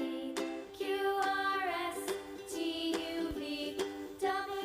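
Children's background music: a light melody of held notes with no words.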